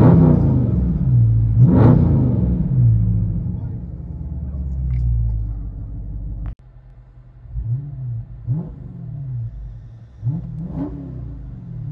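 The 6.4-litre 392 Hemi V8 of a 2019 Dodge Charger Scat Pack, heard from inside the cabin while it is revved standing still. It gives two big revs that rise and fall back in the first two seconds. After a sudden cut about six seconds in come four shorter, quieter throttle blips, with idle between them.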